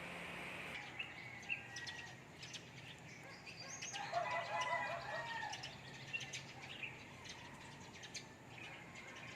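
Birds chirping: a scatter of short high chirps, with a longer, louder call lasting about a second in the middle.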